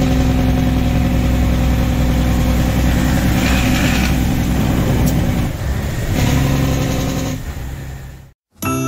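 Detroit Diesel Series 60 six-cylinder diesel in a truck, heard from inside the cab, running steadily under way. The engine note drops for a moment about five and a half seconds in, comes back, then fades out near the end, and music starts right at the end.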